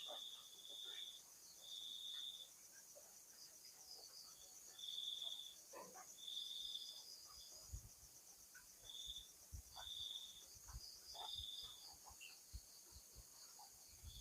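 Faint night sound: a short high note called over and over, about ten times at uneven spacing, each under a second long. This is the strange 'wung wung' sound. Beneath it runs a steady pulsing chirr of insects such as crickets.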